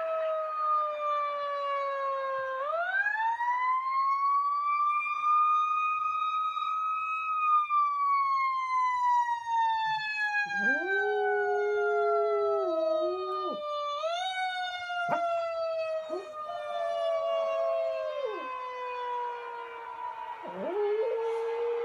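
A siren wails in long, slow rising and falling sweeps. About halfway through, a Pomeranian starts howling along with it, three howls in the second half.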